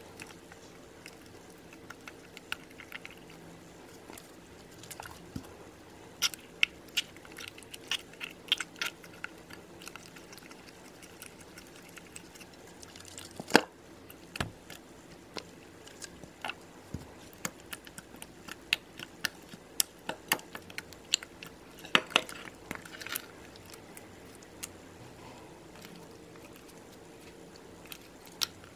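Wet, sticky slime being kneaded, poked and stretched by hand in a bowl, giving irregular small squelches, clicks and pops with short quiet gaps between them.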